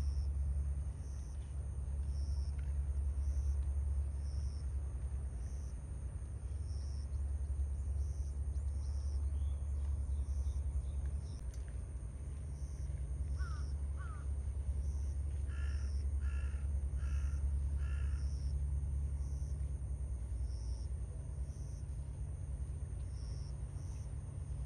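A crow caws four times in quick succession about two-thirds of the way in, over a steady low rumble. Two short chirps come just before the caws.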